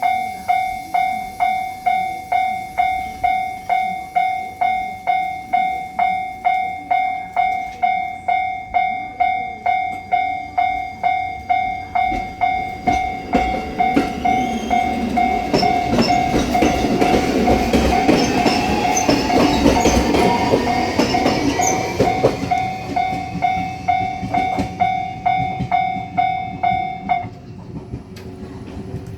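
Japanese level-crossing warning bell dinging steadily at about two and a half strokes a second. A JR Shikoku 7200 series electric train runs through over the middle of it, with rumble, wheel clatter and a rising motor whine. The bell stops a couple of seconds before the end.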